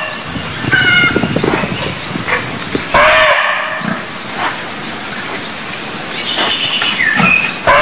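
Barking deer (muntjac) giving loud, short barks about four seconds apart, one about three seconds in and another at the very end. A faint high chirp repeats steadily in the background.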